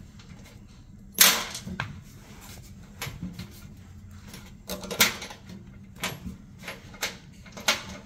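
Irregular sharp metal clicks and clanks of bolts, washers and the motor's mounting arms being handled and fitted onto a sheet-metal blower housing. The loudest knocks come about a second in and again near five seconds.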